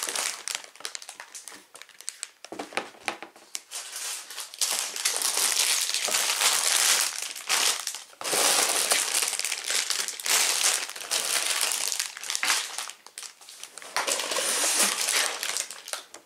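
Plastic Lego parts bags crinkling and rustling as they are handled and taken out of the box, in long stretches with brief pauses.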